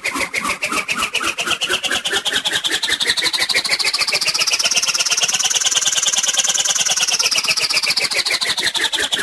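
Cartoon sound effect: a rapid fluttering, motor-like whir whose pitch climbs slowly, peaks about six seconds in, then falls back down.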